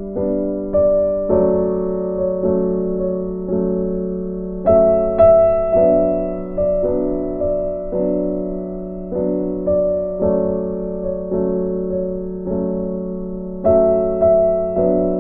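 Slow, gentle piano music: single notes and chords struck at an even pace, each one fading before the next.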